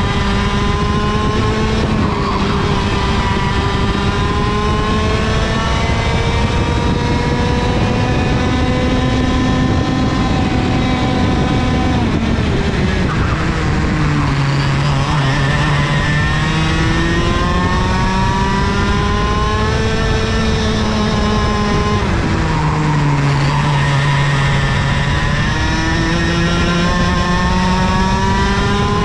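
IAME KA100 100cc two-stroke kart engine at full throttle, heard onboard over wind rush. Its pitch climbs slowly down a straight, drops sharply as the driver lifts for a corner about twelve seconds in, and climbs again. There is another short dip a little past twenty seconds and a drop right at the end.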